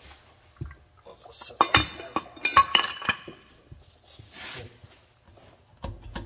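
Metal tools and parts clinking and clanking, with a burst of sharp, ringing clinks from about one and a half to three seconds in and a few more knocks near the end.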